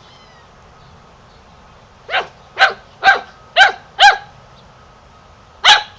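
Golden retriever puppy barking: five short, high yaps about half a second apart starting about two seconds in, then one more near the end.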